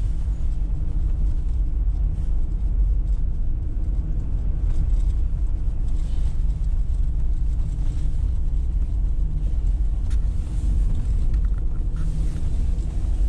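Car driving along a road: steady low engine and road rumble.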